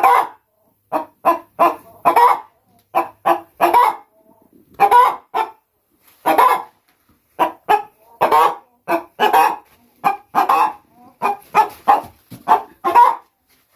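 Hen cackling, a fast run of loud, short, repeated squawks: the egg song a laying hen gives around laying.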